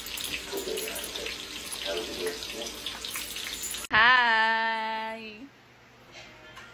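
Scratchy, crackling noise close to the microphone. About four seconds in, a woman's voice cuts in with one long held note lasting about a second and a half, then dies away.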